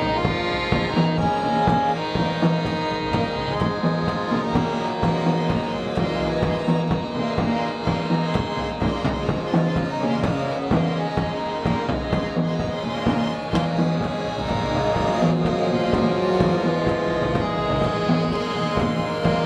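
Live band playing: an acoustic guitar bowed with a bow, held reed tones from accordion or oboe, and a drum kit keeping a steady beat.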